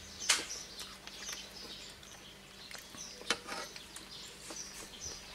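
Small birds chirping in the background, with two sharp clinks about three seconds apart from a metal spoon knocking against a ceramic bowl.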